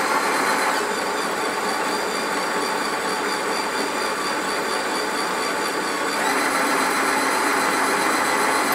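Cordless drill driving a Malt Muncher hand-crank grain mill, its motor running steadily as the rollers crush malted grain. It starts abruptly at the outset and steps up slightly in level about six seconds in.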